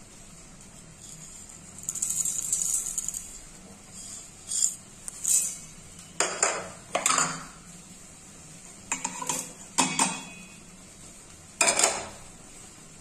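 Small whole spices and then garlic cloves dropped into an empty stainless steel mixer-grinder jar, rattling and clinking against the metal: one longer rattle about two seconds in, then a string of short separate clatters.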